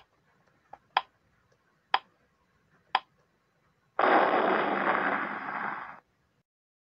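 Countdown timer sound effect: a sharp tick once a second, four times, then a loud burst of noise lasting about two seconds as the count runs out.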